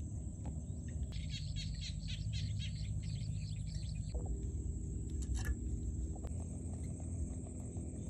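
A bird gives a rapid run of short chirps for about three seconds, then a single chirp, over a steady high thin whine and a low rumble.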